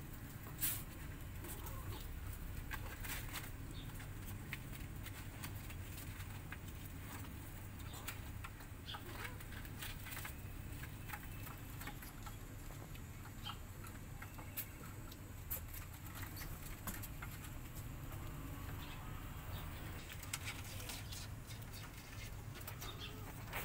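Kittens play-fighting in a plastic milk crate: scattered light clicks, taps and scratches of claws and paws on the plastic, over a low steady hum.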